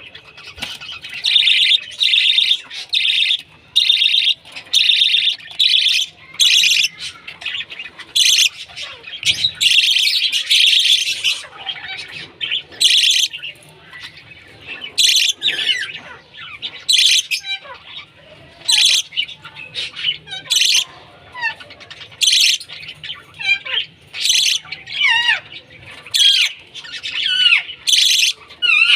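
Pet bird chirping loudly and repeatedly in shrill calls, about one a second, packed close together in the first ten seconds or so. Later come a few softer whistled notes that slide up and down in pitch.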